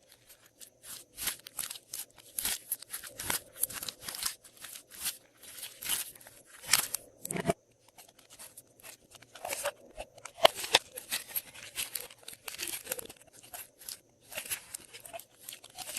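Glossy slime being worked and mixed with add-ins, giving a quick, irregular run of short sticky clicks and pops, with brief pauses about halfway and near the end.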